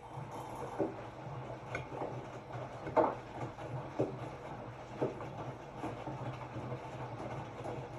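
Hotpoint-Ariston RSG 825 J washing machine turning its drum: the motor hums steadily, with a thud about once a second, the loudest about three seconds in.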